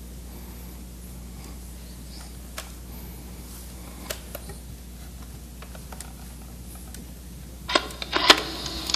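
Small clicks from a handheld cassette recorder being handled, then a few louder clicks near the end as its buttons are pressed, after which tape playback hiss starts. A steady low hum runs underneath.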